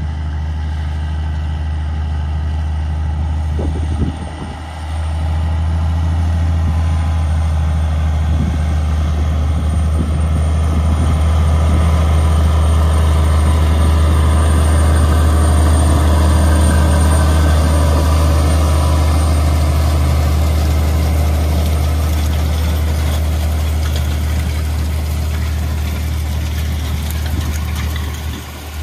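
Case IH STX 375 Quadtrac tractor's diesel engine running steadily under load as it pulls a tillage implement past, growing louder toward the middle. The level dips briefly about four seconds in.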